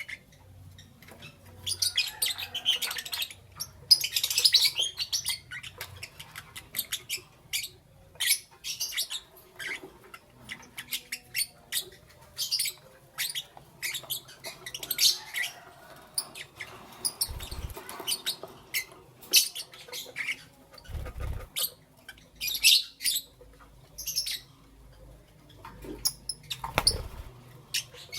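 Lovebirds chirping and squawking: short, sharp, high-pitched calls repeated in quick clusters, with brief pauses between them.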